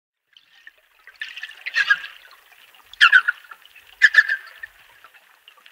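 Dolphins calling underwater: three bursts of rapid pulsed calls about a second apart.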